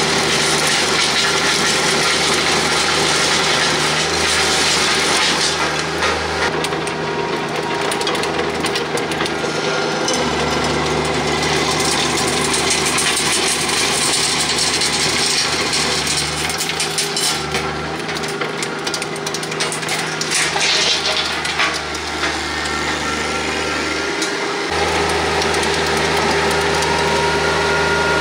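Compact diesel tractor running steadily under load while its rear rotary tiller churns dry soil: a constant gritty grinding over the engine drone, the engine note shifting slightly about ten seconds in and again near the end.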